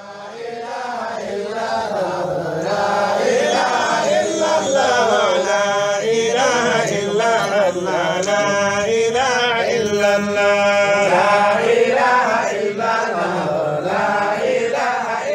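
Melodic vocal chanting in long, pitch-bending phrases over a steady low drone, fading in at the start.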